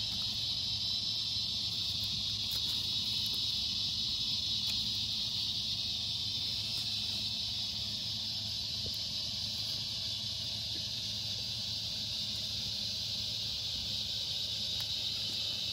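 Steady high-pitched drone of an evening insect chorus, with a few faint pops from a small wood campfire.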